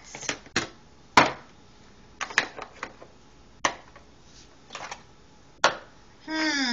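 Hard plastic toy figures and a toy car knocking and clattering on a tabletop and a plastic playset as they are picked up and set down: a series of short, sharp separate knocks, the loudest about a second in.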